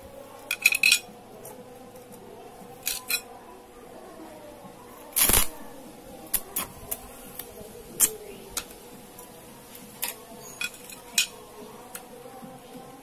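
Stick welder striking and briefly holding an arc on a steel tube joint: a series of short, sharp crackling bursts, the longest and loudest about five seconds in, over a faint steady hum.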